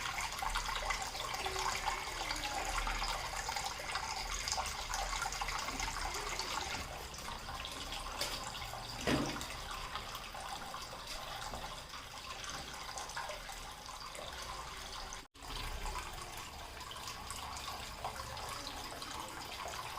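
Water trickling and splashing steadily down a small handmade cement waterfall fountain, with a brief break about fifteen seconds in.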